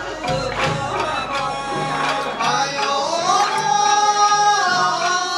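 Japanese bon-odori folk music accompanying a street dance. A long melody note rises about three seconds in and is held there over a steady, even beat.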